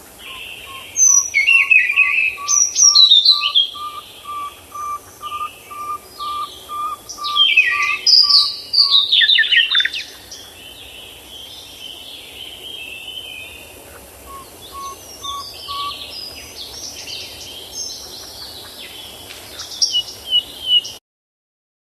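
Birds calling with quick, sharp descending chirps, loudest in flurries early on and again around eight to ten seconds in, with a separate even run of short, lower notes at about two a second in the first half. The sound cuts off suddenly near the end.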